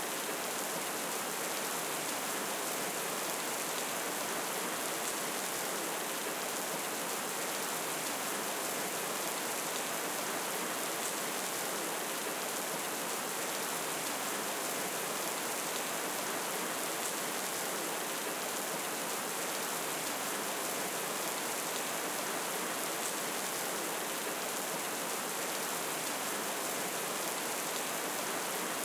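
Steady heavy rain: an even, unchanging hiss, with a faint tick about every six seconds.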